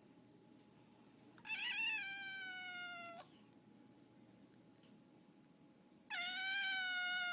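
Domestic cat meowing twice in long, drawn-out calls, each sliding slowly down in pitch. The first wavers at its start, and the second begins near the end.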